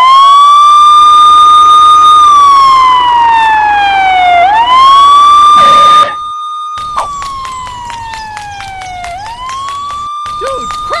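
Police siren wailing: each cycle holds a high pitch, slides slowly down, then sweeps quickly back up. Loud for about six seconds, it cuts out briefly, then carries on quieter with fast ticking over it.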